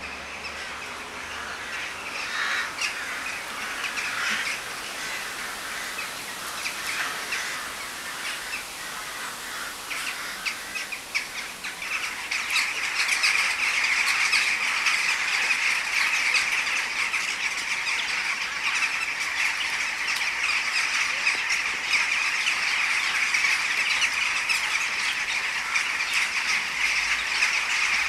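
A large flock of western jackdaws calling: scattered calls at first, then about twelve seconds in the calls thicken into a loud, dense, unbroken chorus.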